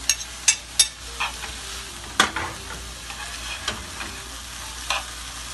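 Shredded chicken, onion and peppers frying in a pan with a steady sizzle while a metal spoon stirs and scrapes. The spoon clinks sharply several times: three in the first second, the loudest about two seconds in, and once more near the end.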